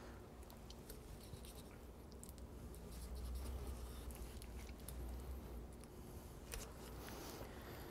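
Faint sounds of a knife cutting through the skin and wing joint of a raw chicken on a wooden cutting board: small scattered clicks, a little busier in the second half, over a low steady hum.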